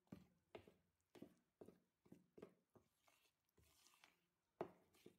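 Faint knocks and scrapes of a metal spoon against a plastic mixing bowl as flour is stirred into wet cake batter, about two strokes a second, with a louder knock near the end.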